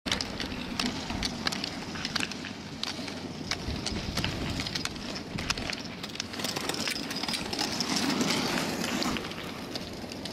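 Roller skis rolling over asphalt, with many irregular sharp clicks of pole tips and skis striking the road surface.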